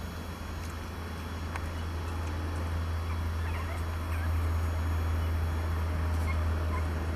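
A few faint, short squeaks from young Shih Tzu puppies, a second or two apart, over a steady low hum.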